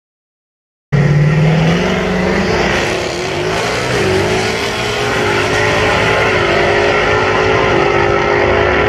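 Drag cars launching and running down the strip at full throttle, the engines starting suddenly about a second in and carrying on loudly as the cars pull away.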